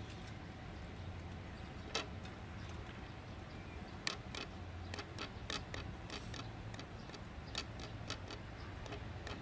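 Knife blade tapping on a round wooden cutting board while cutting food: one knock about two seconds in, then a run of sharp, irregular taps, two or three a second, from about four seconds in, over a steady low rumble.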